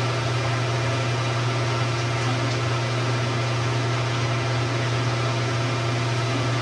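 Hot tub jets running: a steady pump hum under the even hiss of churning, bubbling water.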